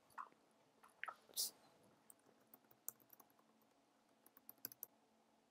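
Faint computer-keyboard typing: scattered keystrokes in two short runs as a sign-in name and password are entered. A brief breathy hiss about a second and a half in is the loudest sound.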